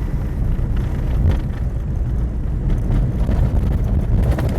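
Vehicle driving on a wet gravel road: a steady low rumble of engine and tyres, with a few faint ticks scattered through it.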